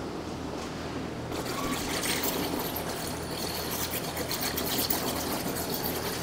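Underwater plasma cutter slicing steel plate on a water table: a hissing, bubbling churn of water around the arc, which grows louder about a second in and flickers unevenly.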